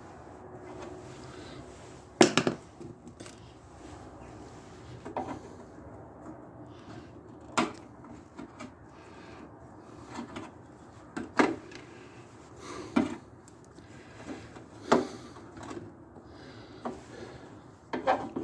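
Irregular knocks and clunks, about eight in all, the loudest about two seconds in, as parts are handled and fitted on a lawn mower's front axle.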